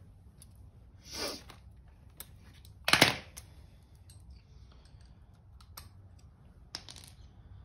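Small metal tools and parts being handled: a few sharp clicks and clinks, the loudest about three seconds in, with faint ticks between.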